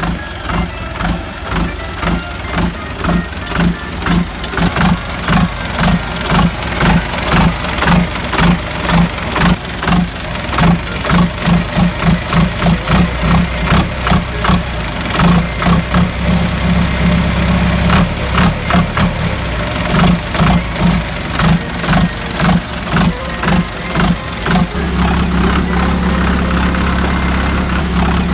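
Engine running at idle with a slow, even throb of about two pulses a second, smoothing into a steadier hum near the end.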